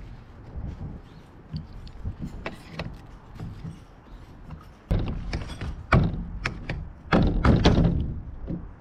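Scattered knocks and clicks of parts and tools being handled, with two louder stretches of clattering and thuds about five and seven seconds in.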